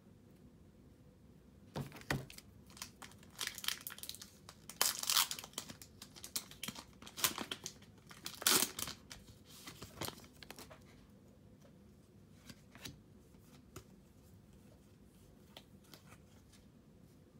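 A foil trading-card pack wrapper being crinkled and torn open, a run of crackling tears that is loudest about five and eight seconds in and stops after about ten seconds, leaving a few faint clicks.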